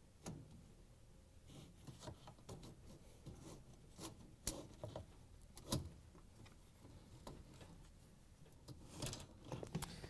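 Faint clicks and rattles of a dishwasher's wire dish rack being worked onto its slide rail, a scattered run of small knocks with the sharpest about halfway through.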